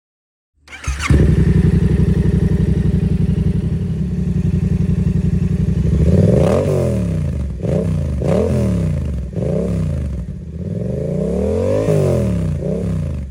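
2022 Yamaha YZF-R7's parallel-twin engine idling through its exhaust, with a sharp crack as the sound begins. After about five seconds it is revved in a string of quick throttle blips, then one longer rev near the end.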